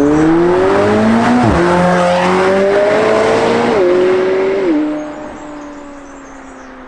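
McLaren 720S twin-turbo V8 on its standard exhaust accelerating hard, its pitch climbing, with sharp upshifts about a second and a half in and near four seconds. The engine note then drops and fades as the car pulls away.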